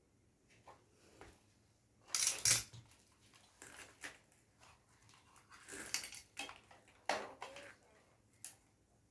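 Small metal parts and tools clinking, knocking and scraping as they are handled, in irregular bursts that are loudest about two seconds in.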